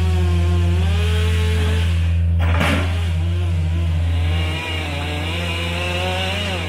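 A chainsaw running with its pitch wavering as it is worked, over the steady low hum of a backhoe's engine. A brief sharp noise comes about two and a half seconds in.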